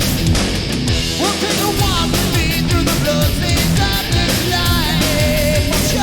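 Loud rock music, heavy and fast with pounding drums and distorted guitar.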